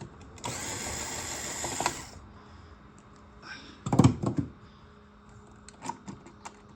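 Electric screwdriver whirring for about a second and a half as it backs out a screw, then a few loud knocks about two seconds later, followed by small ticks of handling.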